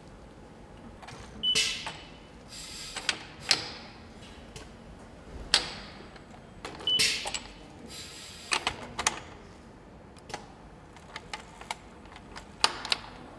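Engine-assembly bolt-tightening tool working on a cylinder head: several short bursts of a power nutrunner spinning, mixed with metallic clicks and clacks. A short high beep sounds twice, about one and a half seconds in and again about seven seconds in.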